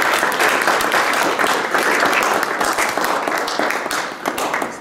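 Audience applauding: dense clapping from many hands that thins out near the end.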